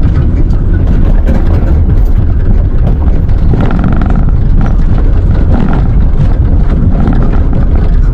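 Electric tricycle on the move: a steady, loud low rumble of tyres and wind with frequent rattles and knocks from the vehicle over uneven ground.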